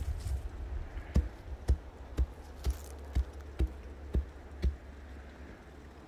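Axe chopping firewood: eight quick sharp strikes, about two a second, stopping a little under five seconds in.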